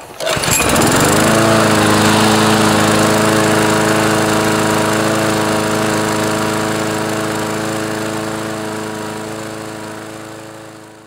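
Briggs & Stratton 6.75 series lawn mower engine catching and revving up within about a second to a steady high speed. It runs with its governor spring just tightened by bending the throttle-linkage loop so it revs higher on an aftermarket carburetor, then fades out near the end.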